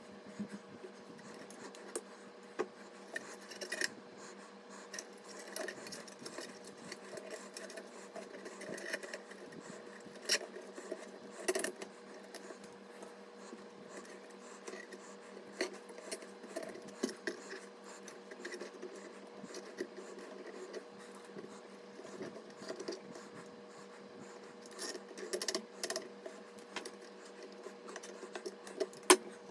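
Irregular small clicks, taps and rubbing from hands handling and fitting PC components, over a steady electrical hum.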